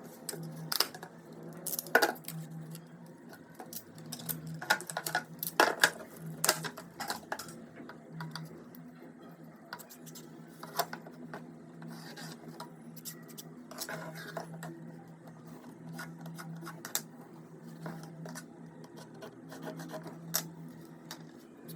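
Handling noises of a metal square rule being unboxed and used for marking: irregular clicks, light knocks and scratching, busiest in the first several seconds, over a steady low hum.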